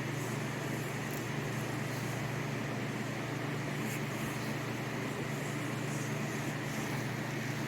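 Steady low hum with an even hiss, unchanging and with no distinct events.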